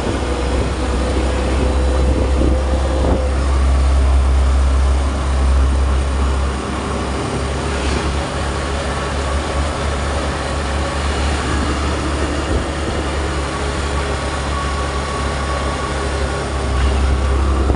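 Motorcycle tricycle in motion: a steady low engine rumble mixed with road noise. It is louder for the first six seconds and again near the end.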